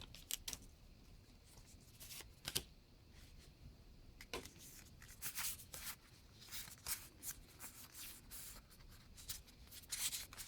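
Pokémon trading cards being handled and slid against each other. Faint scattered rustles and soft clicks, growing busier near the end.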